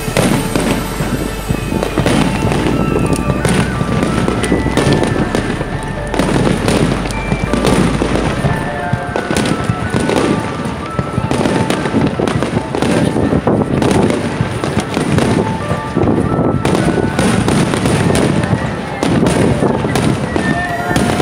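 Aerial firework shells bursting one after another in a dense, continuous run of bangs, with music playing underneath.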